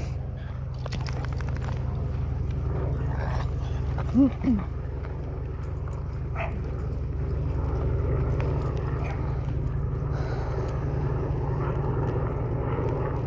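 A dog gives two short barks about four seconds in, over a steady low rumble.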